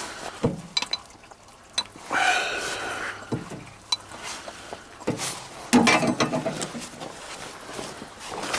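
Scattered metallic clicks and knocks of a size 22 wrench working on the oil drain plug of an M35A2 truck, with short bursts of voice between them.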